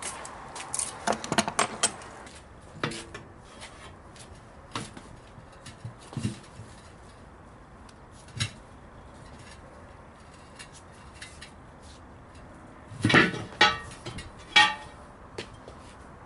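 Metal hand tools being handled and set down: scattered clicks and knocks, with three louder ringing metal clanks near the end.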